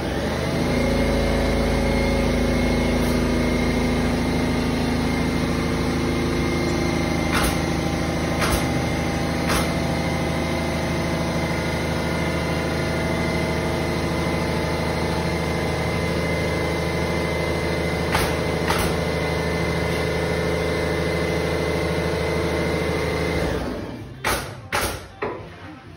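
A motor-driven machine starts up and runs steadily with a constant hum and a faint high whine, then shuts off abruptly near the end. A few light knocks are heard over it.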